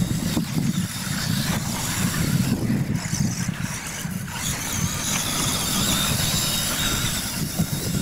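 Radio-controlled monster trucks racing across dirt, their motors giving a high whine that rises and falls. A steady low rumble of wind on the microphone runs underneath.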